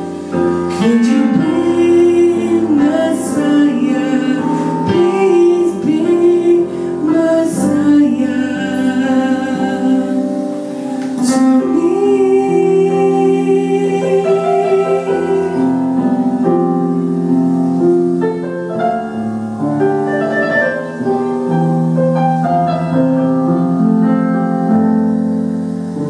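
A voice singing a slow worship song over piano accompaniment, with gliding and held notes.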